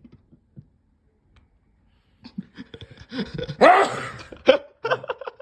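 Elderly man sneezing loudly once, about three and a half seconds in, after a few short catching breaths, with brief vocal sounds after it.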